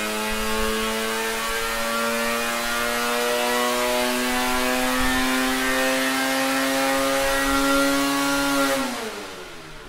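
Ski-Doo 700 snowmobile's two-stroke twin running wide open under dyno load during an acceleration pull, its pitch climbing steadily as the revs rise from about 5,700 to past 8,000 rpm. About nine seconds in it comes off the throttle and the revs fall away quickly.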